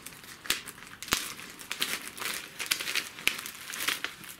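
Clear plastic resealable bag being pulled open and handled, crinkling and rustling with a few sharp clicks.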